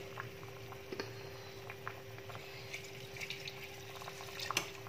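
Coconut-milk sauce simmering in a frying pan, with a few light clicks of a plastic spatula against the pan over a faint steady hum; one sharper knock near the end.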